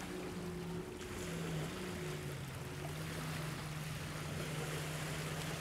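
Steady drone of a distant motorboat engine out on the lake, its pitch shifting slightly, over the wash of lake waves on the rocky shore.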